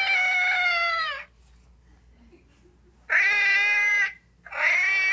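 Recorded house cat meowing three times, each meow about a second long and falling in pitch at the end, played back from a sound effect machine's speaker.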